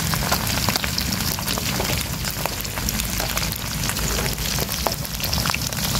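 Small gourami fish deep-frying in hot oil in a wok, a steady crackling sizzle with many small pops.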